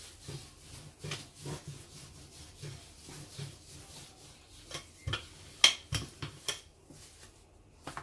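Wooden rolling pin rolling out dough on a floured countertop: soft rubbing strokes and light taps, with a few sharp clacks a little past the middle.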